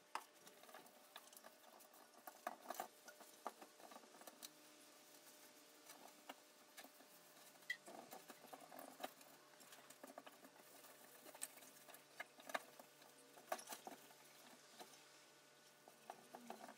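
Quiet scuffing and rubbing of a cloth rag being wiped over the painted sheet-metal housing of a Tilley FL6 runway lamp, with scattered light ticks and taps as the housing is handled.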